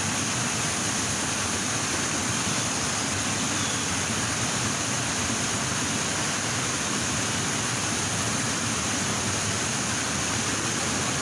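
Steady rush of fast-flowing stream water, an even noise with a constant high hiss over it.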